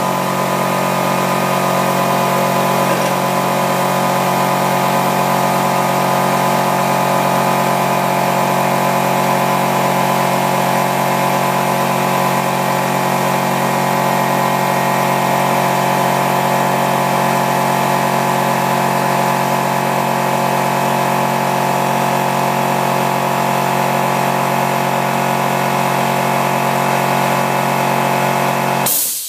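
Electric air compressor running steadily with a constant droning hum, then cutting off abruptly near the end.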